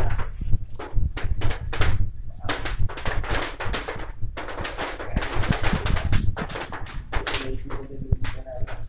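Electric arc welding on hollow steel tubing: a dense, irregular crackling that comes in runs, with brief breaks about two and four seconds in.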